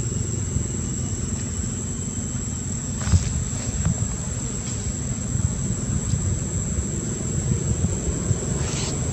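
Outdoor background noise: a steady low rumble with a constant thin high-pitched whine over it, and a single short knock about three seconds in.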